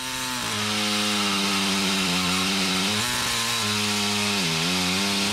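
Small handheld power tool, a grinder-type motor, running with a steady whine. Its pitch sags twice, about three seconds in and again about a second and a half later, as it is pressed into the work.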